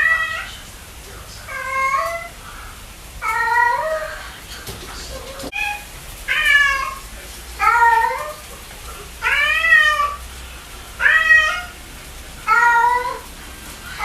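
Domestic cat meowing repeatedly: about eight drawn-out meows, roughly one every second and a half, each rising and then falling in pitch.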